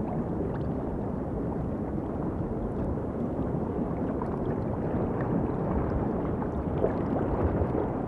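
Steady low rushing underwater ambience, with a few faint ticks here and there.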